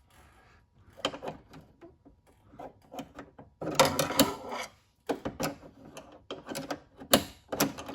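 Irregular clicks, knocks and a short scrape of the metal door-latch linkage rod and its retaining clip being worked by hand inside a 1981 C3 Corvette door, while the rod end is adjusted.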